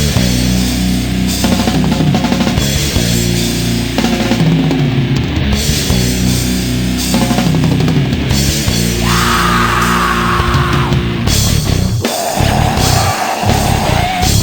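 Nu-metal instrumental passage: heavy distorted guitars and drum kit, with no vocals. Held higher guitar tones come in around the ninth second, and the heavy low end thins out in the last couple of seconds.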